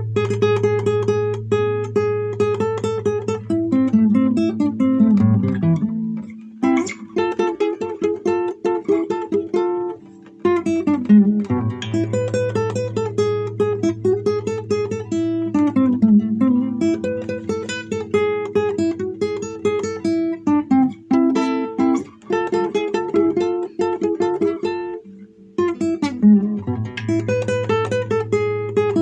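Solo acoustic guitar playing a Peruvian marinera, mixing strummed chords and quick plucked runs over held bass notes, with a few short breaks between phrases.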